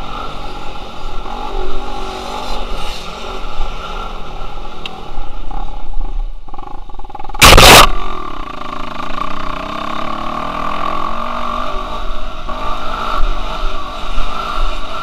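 Dirt bike engine being ridden hard, revving up and easing off with the throttle. Just past halfway the engine drops off, then a loud sudden burst of noise about half a second long, after which the engine revs up again with rising pitch.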